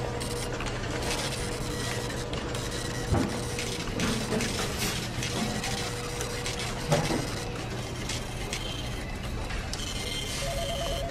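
Office background noise: a printer running over a steady hum, with scattered clicks and two louder knocks. A telephone starts ringing near the end with a warbling two-tone ring.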